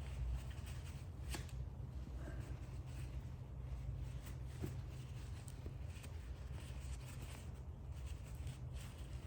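Paper towel rustling and rubbing as a grimy carburetor electric choke is wiped clean, with a few light clicks of handling, over a steady low hum.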